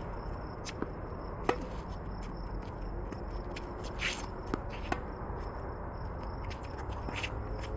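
Tennis rally on a hard court: a few sharp pops of racket strings striking the ball and the ball bouncing, the loudest about one and a half seconds in, with shoe scuffs and footsteps on the court between shots.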